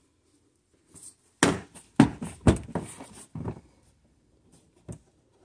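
A quick run of loud knocks and rattling clatter of hard plastic being handled and pushed into place as a plastic cover is refitted, then a single knock near the end.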